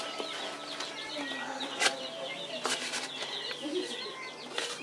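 A small bird twittering steadily in quick high chirps, with a few sharp clicks.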